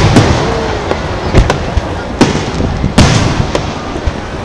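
Aerial firework shells bursting overhead: a series of sharp bangs at irregular intervals, the loudest about three seconds in.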